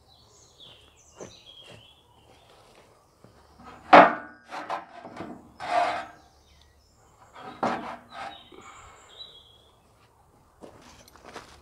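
Wooden battens knocking and scraping as they are handled and shifted on the chicken tractor's steel trailer frame. A loud wooden knock about four seconds in is followed by a few smaller knocks and scrapes, with another loud knock about eight seconds in.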